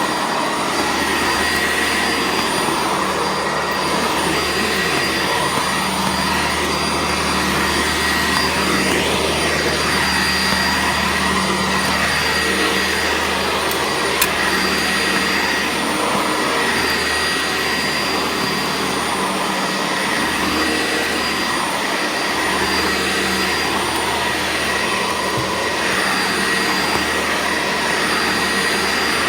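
Sanitaire SC679J commercial upright vacuum cleaner running steadily, its motor giving a constant high whine over a rushing airflow. There is a single sharp click about 14 seconds in.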